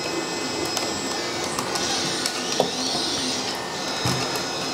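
Light rubbing and a few small clicks as a length of EL wire is pulled through a channel in a 3D-printed plastic model, over a steady background hum. A few sliding high-pitched squeaks come and go in the middle.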